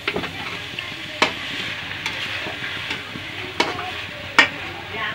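Metal spatula stirring clams in masala in a metal kadai, over a steady sizzle of frying. Four sharp clinks of the spatula striking the pan, the loudest near the end.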